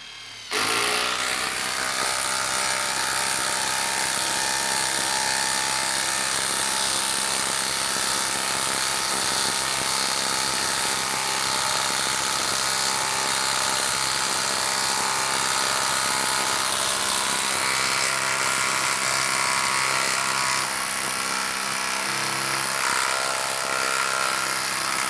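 Hilti 12-volt brushless impact driver hammering steadily as it drives a 4-inch lag screw into a log round. It starts about half a second in.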